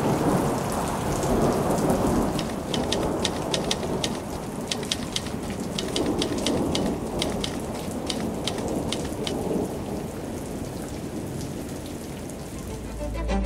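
Rain falling on wet pavement with low thunder rumbling underneath. Sharp individual drop splashes stand out through the middle, and the rain eases slightly near the end.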